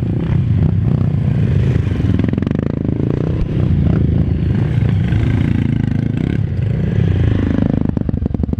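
Several off-road trail motorcycles running at low speed in a queue on a rough, steep trail, their engines revving up and easing off, with clatter and scraping from the bikes over rough ground. Near the end the engine note settles into an even, steady idle as the bikes stop.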